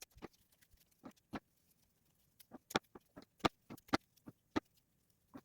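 Scissors snipping through dog hair wound around a robot vacuum's main roller brush: a run of short, sharp snips at an uneven pace.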